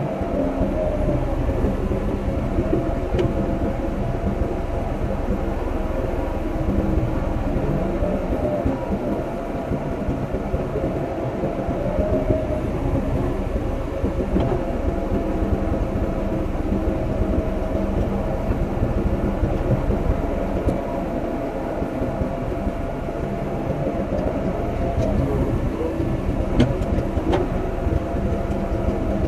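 Excavator's diesel engine running steadily under heavy working load, with a whine that bends up and down now and then as the machine works.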